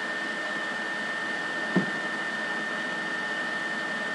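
Steady recording hiss with a constant high-pitched whine running under it, and a single short click a little under two seconds in.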